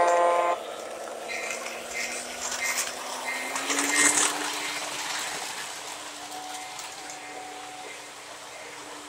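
Model O gauge Santa Fe F-unit diesel locomotive passing close by. Its electronic horn chord cuts off about half a second in, then a series of short, high dings like its bell follow. Wheels clatter over the track as it passes, loudest about four seconds in, over a steady motor hum that slowly rises in pitch.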